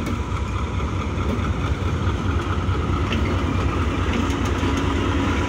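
Pakistan Railways AGE-30 diesel-electric locomotive's engine running with a deep, steady rumble as it pulls the train out at departure, growing slightly louder as it passes.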